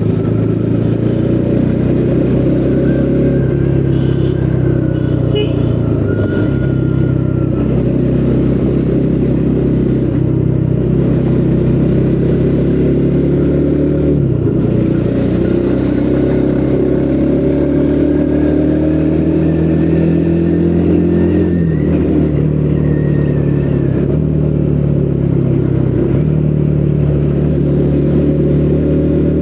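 Triumph Speed 400's single-cylinder engine, stock exhaust, pulling on the road: the engine note climbs steadily in pitch and drops sharply at each gear change, a few times over.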